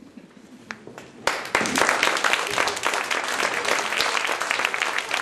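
An audience applauding: dense clapping breaks out suddenly about a second in and keeps going.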